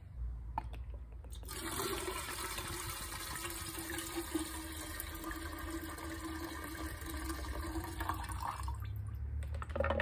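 Contaminated trimmer fuel, gas with water in it, poured in a steady stream from the fuel tank into an empty metal coffee can. The can gives it a ringing tone. It starts about a second and a half in and runs for about seven seconds as the tank is drained.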